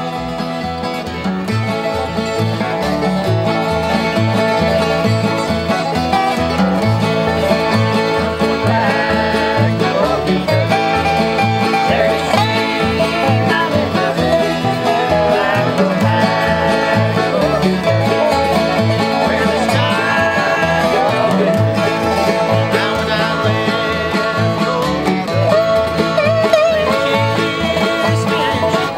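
Acoustic bluegrass string band playing together, mandolin and guitar picking over a steady low beat about twice a second.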